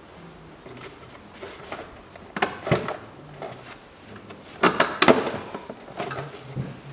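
Hard plastic clicks and clattering knocks as the air filter housing and intake parts are handled and worked loose by hand, with two louder bursts, about two and a half and five seconds in.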